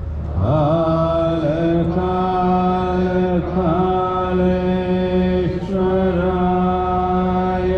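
Mantra chanting in long held notes over amplified sound, the pitch sliding into each new phrase every second or two.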